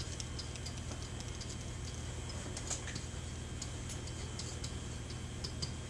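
A pen or stylus clicking and tapping irregularly on the surface of an interactive whiteboard as words are written, over a steady low hum.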